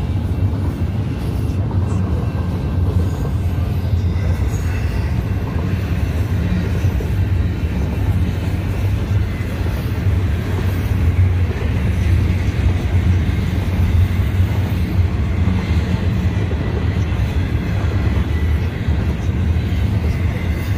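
Union Pacific double-stack intermodal freight train rolling through a grade crossing: a steady rumble and clatter of container well cars passing.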